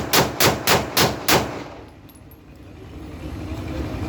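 A pistol test-fired in a rapid, even string of about six shots, roughly four a second, stopping about a second and a half in.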